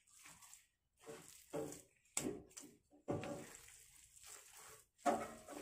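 Spatula working a thick turnip and rice-flour batter in a pan, in irregular strokes about one every half second to second, with a longer stroke a little after the middle. The batter is stiff, firmer than the cook wants it.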